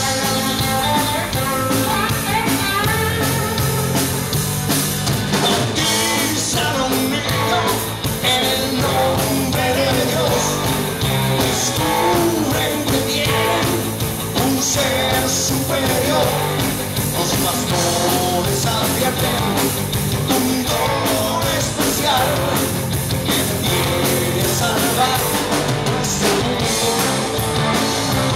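Rock band playing live: electric guitars, bass guitar and a drum kit, with a man's voice singing over them.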